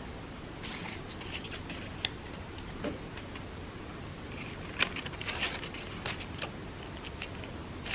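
Crepe paper being handled with scattered small crinkles and light taps, a few at a time, while glued pieces are pressed in place.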